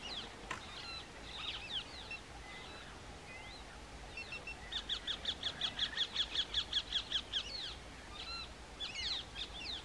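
Wild birds calling: scattered high chirps and whistles, with a fast run of evenly repeated high notes, about five a second, lasting nearly three seconds in the middle.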